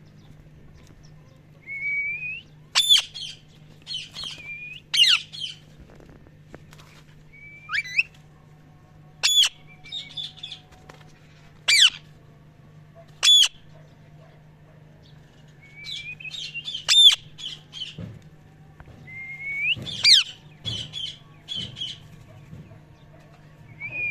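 Indian ringneck parrot chirping and squawking: short rising calls and shrill, sharp whistles in clusters, with pauses of a few seconds between them.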